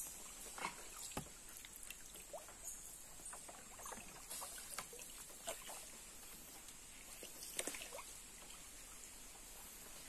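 Canoe paddle dipping into still water, with irregular splashes and drips running off the blade, several of them short plinks that rise in pitch. A steady high-pitched hiss sits behind.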